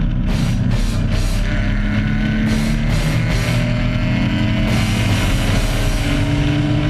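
Hard rock music with a driving drum beat and electric guitar, over a race car's engine running at speed.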